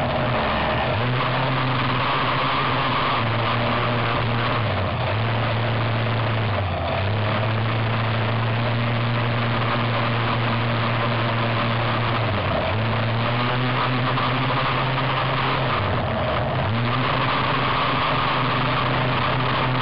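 BZM petrol two-stroke engine of an RC race boat, heard from a camera mounted on the boat, running at high revs. The pitch dips and climbs back about four times as the throttle is eased and reopened.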